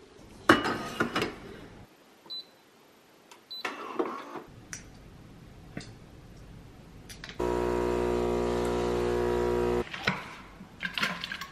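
Clinks and knocks of bottles and a mug being handled on a kitchen counter, then an electric kitchen appliance buzzing steadily for about two and a half seconds, starting and stopping abruptly.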